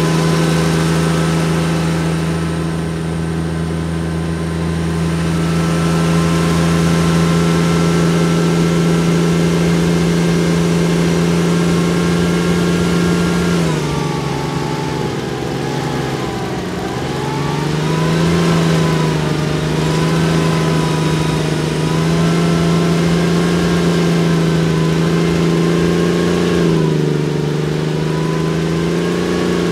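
Diesel engine of a Saurer SPzA1San tracked armoured vehicle running under way. It holds a steady pitch until about halfway through, then drops and rises and falls several times as the throttle and load change over the sand hills.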